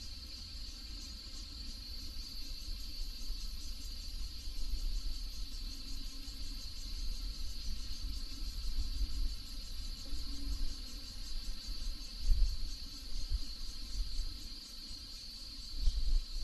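Insects trilling in a steady, continuous high chorus, with an uneven low rumble underneath that swells a few times, loudest about twelve seconds in and again near the end.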